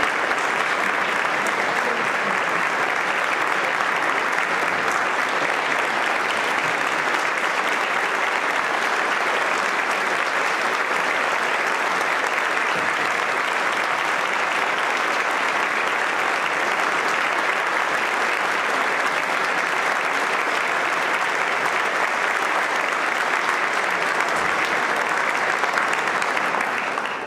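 Concert-hall audience applauding steadily, many hands clapping at once in a dense, even patter.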